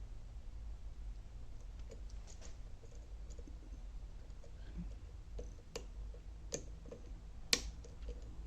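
Scattered small metallic clicks of a dimple-lock pick and tension tool working in an Alba dimple lock, with a few sharper clicks in the second half and the loudest near the end. A steady low hum runs underneath.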